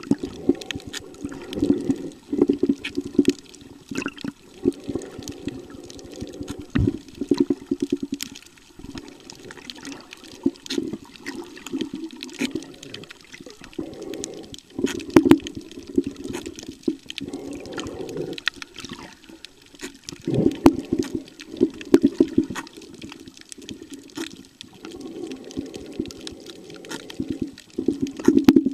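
Muffled water noise picked up by a camera held underwater, swelling and fading every second or two, with many scattered sharp clicks.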